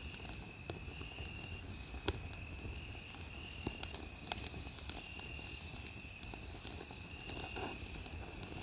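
Wood fire crackling faintly in a metal brazier, with scattered sharp pops, the loudest about two seconds in. A cricket trills high and steady in repeated bursts of about half a second.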